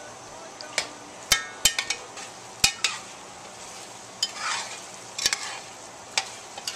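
Metal spoon stirring chicken and chopped vegetables in a metal pot, clinking sharply against the pot about a dozen times, with a longer scrape along the bottom about four and a half seconds in. Under it runs a steady frying sizzle.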